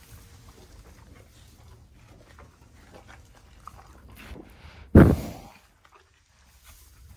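Horse blowing a loud snort of breath into the microphone about five seconds in, fading over about half a second. Before it, faint rustling and chewing of horses eating hay.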